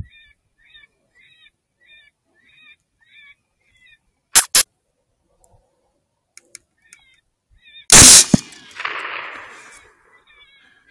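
A rifle shot about eight seconds in, the loudest sound, with its report trailing off over a second or so. Before it, a high chirping call repeats about twice a second, and two sharp clicks come just after four seconds in.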